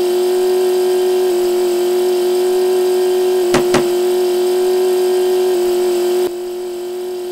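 Truck engine sound effect running as a steady hum at a constant pitch. Two short clicks come about three and a half seconds in, and the hum drops a little in loudness past six seconds.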